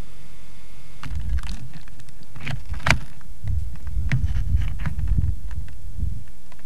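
Camcorder handling noise: low rumbling buffets of wind on the microphone with scattered bumps and clicks as the camera is moved, the sharpest click about three seconds in, over a steady background hiss.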